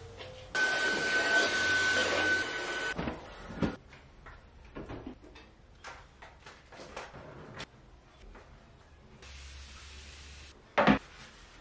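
Household cleaning sounds. A long spray hiss starts about half a second in and lasts about two seconds. It is followed by scattered clicks and clatter of a drawer and things being handled. Near the end a spray bottle gives a shorter hiss as it mists the bathroom mirror, then a sharp knock, the loudest sound.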